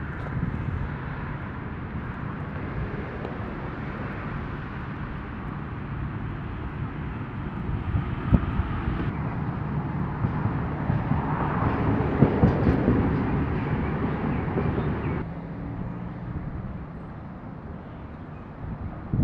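Road traffic going by, a steady rumble with one vehicle passing louder about two-thirds of the way through.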